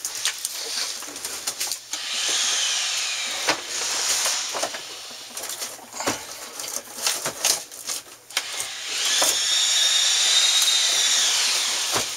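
Cordless screw gun run in short bursts, its motor whine rising and falling, the longest run about nine seconds in, with scattered knocks and scrapes as the AC unit is worked into place.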